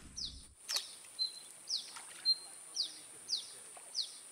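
A bird calling over and over: a sharp, high downslurred note about twice a second, with a short level whistle slipped in between every few notes. A faint steady high tone runs underneath.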